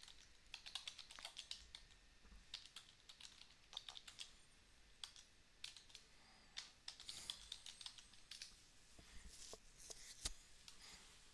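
Faint computer keyboard typing: a run of quick, irregular key clicks as a command is typed.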